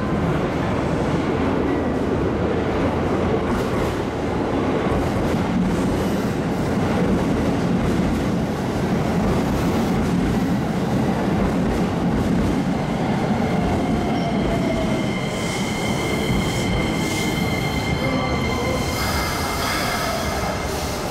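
Keikyu 1500-series electric train pulling into the platform and slowing to a stop, with a steady rumble as the cars roll past. From about two-thirds of the way in, high squealing tones join as it brakes.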